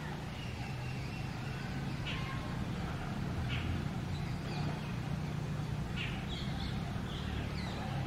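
Rose-ringed parakeets giving about five short screeching calls, a second or more apart, over a steady low background rumble.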